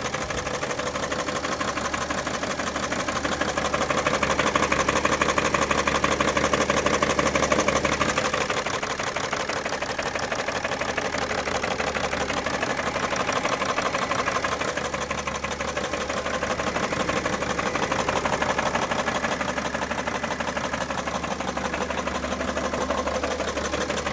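2011 BMW 335d's 3.0-litre twin-turbo inline-six diesel running with a bad, rapid knocking throughout, slightly louder for a few seconds near the start; the owner can't tell where the knock comes from.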